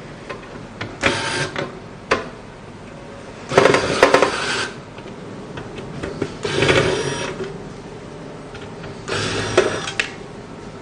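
Electric screwdriver's small motor running in four short bursts of about a second each, with faint clicks between.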